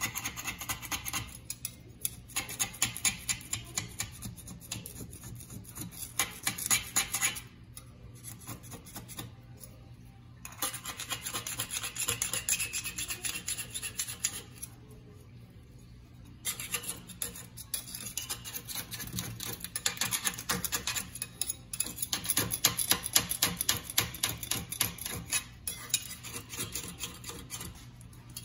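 A metal blade scraping old silicone caulk off the seam between a stainless steel sink rim and the countertop. It goes in quick back-and-forth strokes and stops briefly twice. This is the stripping of the old sealant before the sink is resealed.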